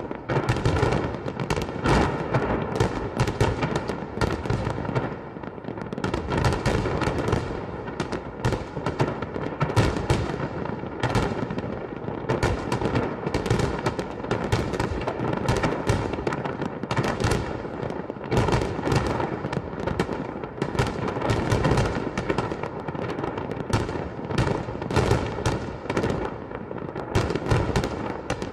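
Fireworks display going off in a continuous barrage of bangs and crackles, several a second without a break.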